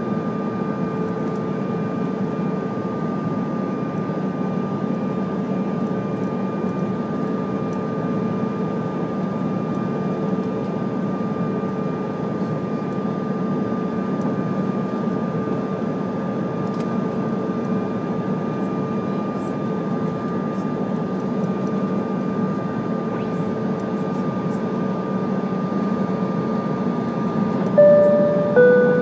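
Steady cabin noise of a CRJ-200 regional jet on approach: a rush of air with the steady whine of its two rear-mounted GE CF34 turbofans. Near the end, a two-tone cabin chime sounds, high then low.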